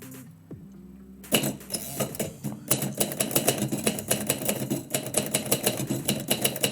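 Typewriter being typed on: rapid, irregular key strikes clattering in quick runs, starting about a second in after a short lull.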